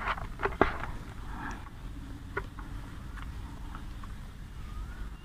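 Hands breaking up and crumbling a block of straw-mushroom spawn in a plastic basin: a quick run of crackles and rustles in the first second, then quieter handling with an occasional crackle.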